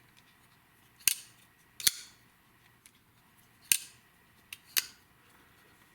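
CRKT Ruger Hollow Point +P folding knife being opened and shut: five sharp metallic clicks as the blade snaps out on its IKBS ball-bearing pivot and locks, and is folded closed again.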